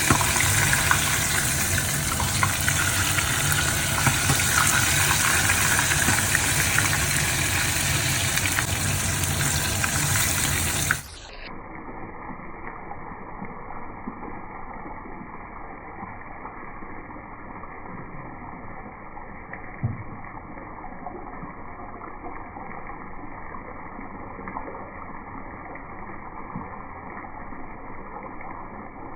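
Chicken leg pieces sizzling in hot oil in a frying pan, a steady hiss that cuts off abruptly about eleven seconds in to a quieter, duller sizzle.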